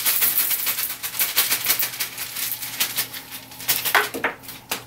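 Boron-nitride-coated rifle bullets rattling and clinking against each other as they are poured into a cloth sock, a quick run of small metallic clicks, with a few louder clicks near the end.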